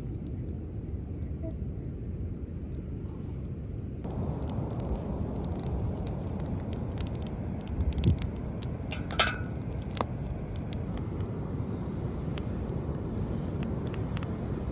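Steady low rush of wind and surf, joined about four seconds in by the crackle and scattered pops of a wood fire. Past the middle comes a thump and then a short metallic clank and ring as the steel plow-disc wok is set down on the iron trivet.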